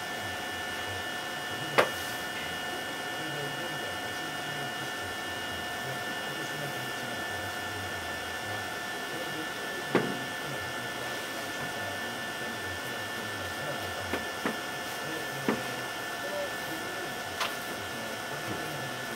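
Steady hiss with a few faint steady tones, broken by about six sharp clicks, the loudest about two seconds in and about ten seconds in.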